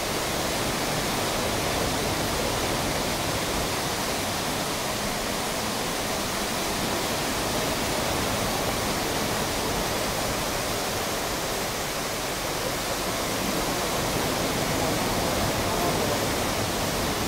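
Water from the Rain Oculus, a huge acrylic bowl fountain, swirling and pouring down through its centre opening as a waterfall, heard as a steady rush of falling water.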